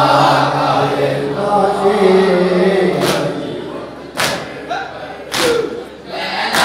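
A group of men chanting a noha in unison, giving way about halfway through to sharp, loud strikes of hands on chests (matam), three of them a little over a second apart, with the men's voices carrying on faintly between.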